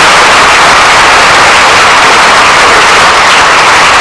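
An audience applauding, loud enough to overload the recording into a steady, harsh hiss.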